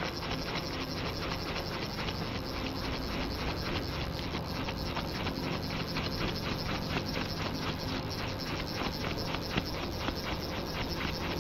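Fly reel clicking in a steady rhythm of several clicks a second while a hooked pink salmon is played on a bent spey rod, over a constant hiss of wind and water.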